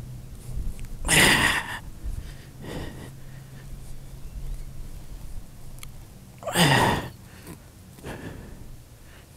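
A man's heavy sighs or exhalations, two loud ones each followed by a softer breath.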